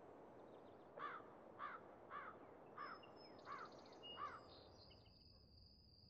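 A bird calling six times in a row, one call about every two-thirds of a second, each rising and falling in pitch, over a faint outdoor hiss. A thin, high, steady tone comes in after the calls stop.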